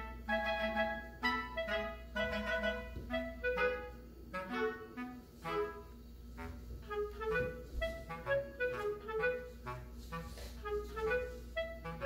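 Background music: a quick melody of short, detached notes on a woodwind, clarinet-like, with accompaniment.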